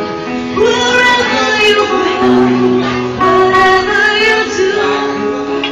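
Live band music with a singer holding long, slightly wavering notes over the accompaniment.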